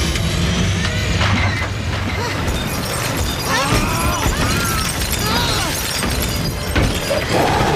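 Film action sound effects of a plane fuselage being smashed apart: continuous crashing and breaking of metal and glass, with several high, rising-and-falling screeches in the middle.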